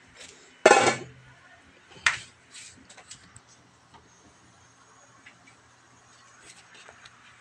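Aluminium pot lid set down with a loud ringing clank less than a second in, then a second sharp knock about two seconds in, followed by a few faint ticks over a low steady hum.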